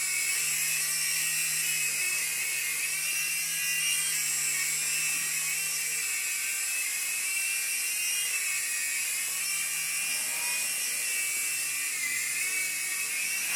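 Small electric motor and rotor of a toy remote-control helicopter running steadily in flight, a high whine that wavers slightly in pitch.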